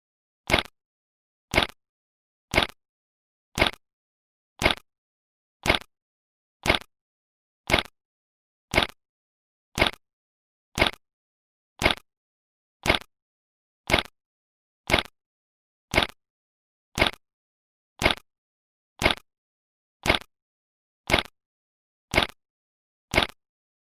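A 'bad signal' sound effect: a short, sharp crackling click repeating evenly about once a second, with silence between.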